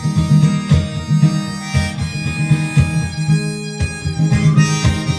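Harmonica playing a bluesy instrumental break over strummed acoustic guitar, in a live solo folk performance.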